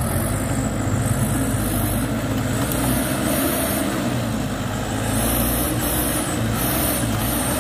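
Light cargo truck's engine running as the truck crawls through deep mud toward the camera, with short hisses every second or two.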